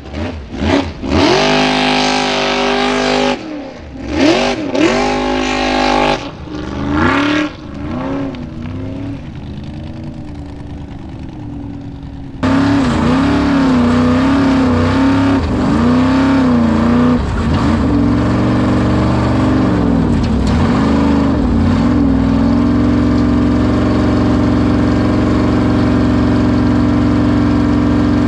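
Formula Offroad hillclimb buggy's engine revving hard in repeated surges, its pitch rising and falling as it climbs. About twelve seconds in it turns suddenly louder, heard from inside the car, and revs again before settling to a steady run near the end.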